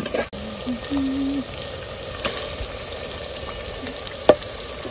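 Green masala paste and marinated chicken sizzling as they fry in a hot pot, with a ladle stirring. There is a sharp knock about four seconds in.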